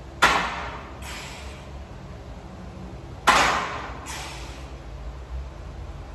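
Forceful, hissing breaths of a lifter doing barbell back squats: two sharp bursts about three seconds apart, one per rep, each followed a moment later by a weaker one.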